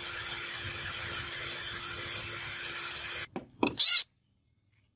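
Electric drill spinning a white plastic wheel while a steel bar is held against it, scraping off curls of plastic, with a steady motor hum. The sound cuts off suddenly a little over three seconds in, followed by a few short, loud noises.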